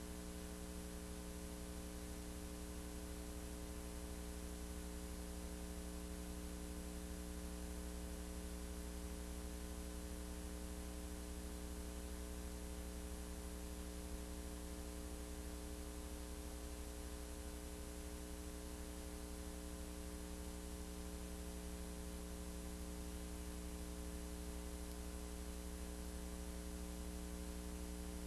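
Steady electrical mains hum over an even hiss, unchanging throughout.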